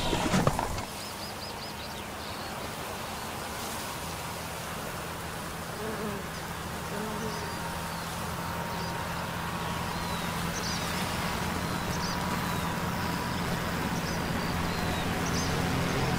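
A low, steady droning hum that slowly grows louder, with small birds chirping faintly over it.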